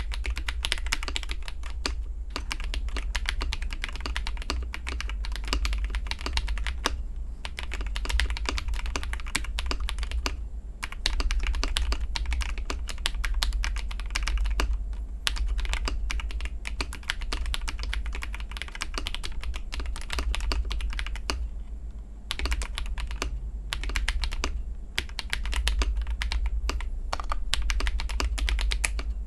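Fast typing on a mechanical keyboard fitted with AKKO CS linear switches, Durock V2 stabilizers and AKKO Neon Cherry-profile keycaps: a dense run of key strokes. It changes from Rose Red to Matcha Green switches at a short pause about two seconds in.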